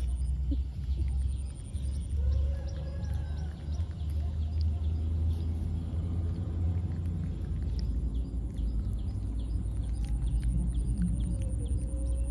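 Wind rumbling steadily on the microphone, with small clicks of baby macaques chewing bananas. A soft call from one of the monkeys comes about two seconds in and again near the end.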